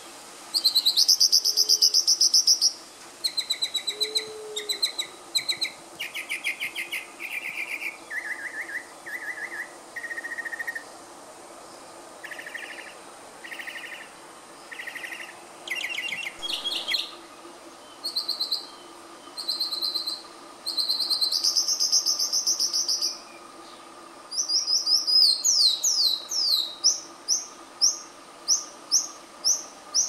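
Northern mockingbird singing: a long string of varied phrases, some high and some lower, each a rapid run of notes repeated several times before it switches to a new one.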